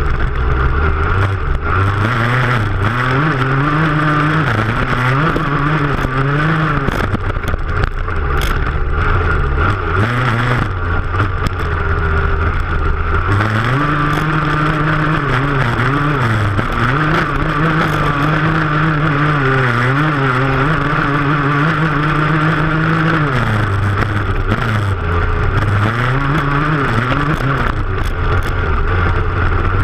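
Off-road motorcycle engine running hard, heard up close from the rear fender. Its pitch climbs and drops in steps as the rider works the throttle and gears, and it stays lower for a few seconds about ten seconds in. A steady rushing noise of wind and the rear tyre throwing up dirt runs under it.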